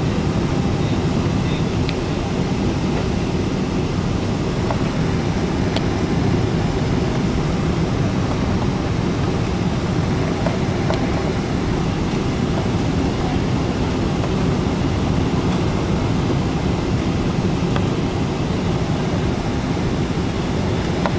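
Jet airliner noise during a landing approach: a steady, unchanging low rumble and rush, with a few faint clicks.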